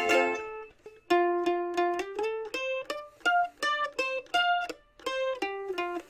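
Ibanez M700AVS mandolin, solid spruce top with maple back and sides, being played: a strummed chord rings out and fades, then after a brief pause a melody of single picked notes, about two to three notes a second.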